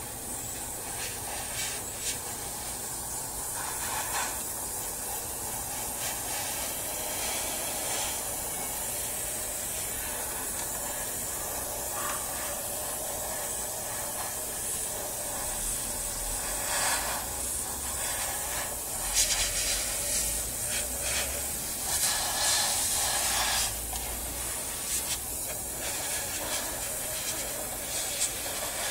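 Gravity-feed airbrush spraying paint with a steady hiss that swells in short passes.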